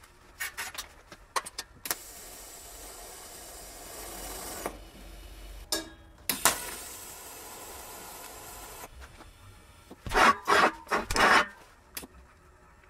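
Welding arc hissing steadily in two runs of a few seconds each, with scattered clicks before them. Near the end come four or five loud metallic knocks or scrapes.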